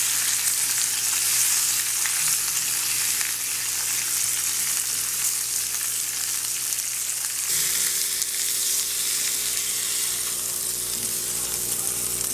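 Thick almaco jack fish steak sizzling in a ridged cast iron grill pan on a stove that has just been switched off, a steady dense hiss of frying. The hiss eases a little just past halfway through.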